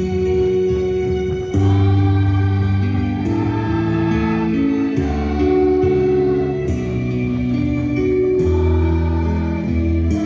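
School children's choir singing with instrumental accompaniment: sustained chords that change about every second and a half, each change marked by a light percussive stroke.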